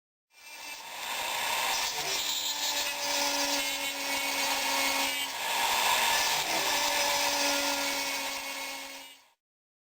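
A motor-driven tool working wood, with a steady hum under a rasping noise. The hum breaks and resumes twice, about two seconds in and again around six and a half seconds.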